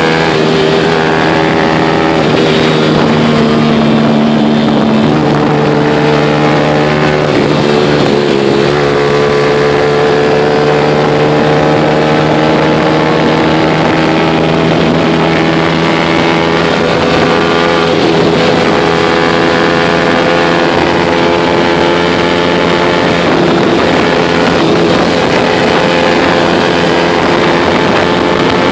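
Motorcycle engine running on the move, heard from on board. Its pitch climbs slowly for several seconds and shifts a few times as the speed changes, with wind noise over the microphone.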